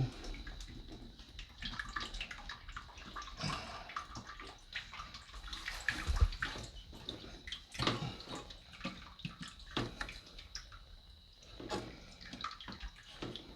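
Tightening the plastic lock nut of a toilet fill valve by hand: irregular plastic clicks and knocks, with water splashing and dripping in the tank. One heavier thump comes about six seconds in.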